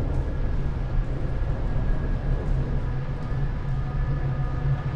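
Hurricane wind blowing with a steady deep rumble, with faint steady whistling tones above it.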